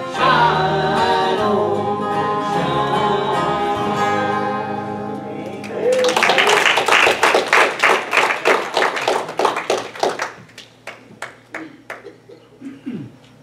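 A gospel string band with bass, acoustic and resonator guitars plays the last few seconds of a bluegrass-style song with singing. The music stops about six seconds in and the congregation applauds, the clapping thinning to scattered claps and dying away over the last few seconds.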